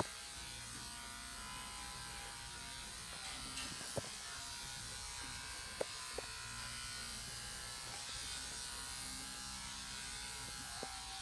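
Corded electric dog-grooming clippers running steadily with a low buzz as they shave a sheepdog's coat, with a few short clicks about four and six seconds in.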